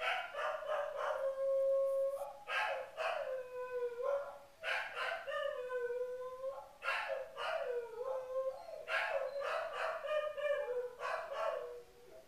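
Dog howling: a run of long wavering howls, each breaking off into short yips, repeating about every two seconds.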